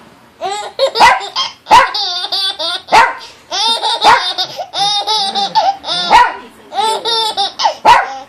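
A baby laughing in long, high-pitched bursts while a dog barks in reply, about five sharp single barks spread between the laughs.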